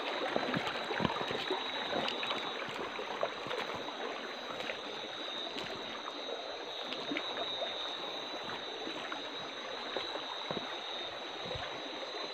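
Shallow river running steadily over rocks, an even rushing and trickling. A thin, steady high tone sits above the water, and faint small ticks and splashes come through now and then.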